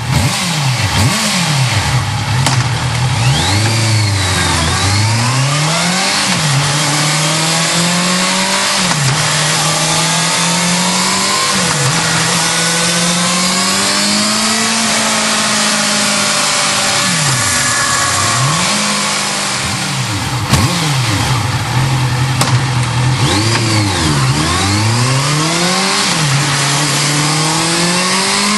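Honda CB650F's inline-four engine being revved over and over, the pitch sweeping up and falling back in a string of quick blips, with a longer climb held high in the middle, heard through its exhaust.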